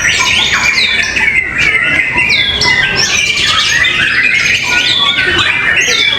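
Contest songbirds singing a fast, unbroken string of varied whistles, sweeping chirps and harsh notes. Several birds overlap densely.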